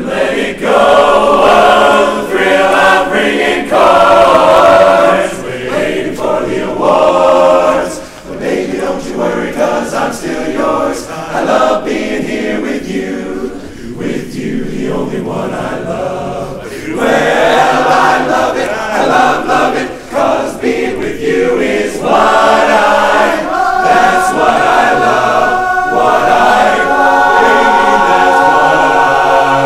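Men's barbershop chorus singing a cappella in close four-part harmony, swelling and falling back in volume. In the last part it settles into a long sustained chord.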